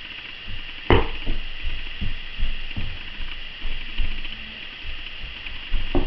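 A small child's feet thudding and stamping irregularly on a rug-covered floor while dancing, with a sharper knock about a second in and another near the end, over steady camera hiss.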